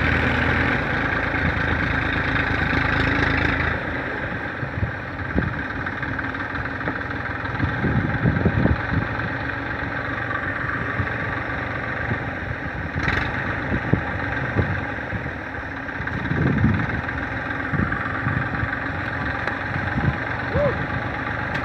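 Tafe 45DI tractor's diesel engine running, louder for the first few seconds and then lower and steady, with one sharp click about 13 seconds in.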